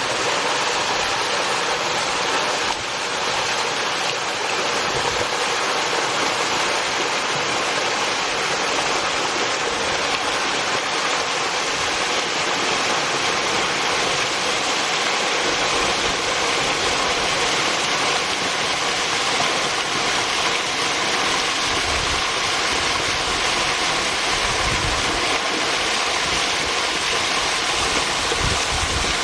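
Mountain waterfall: falling water making a steady, even rush without a break.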